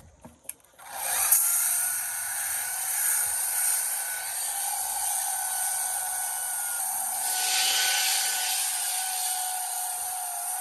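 Electric power sander starting up about a second in and running steadily with a motor whine and a hiss of abrasive on wooden deck planking.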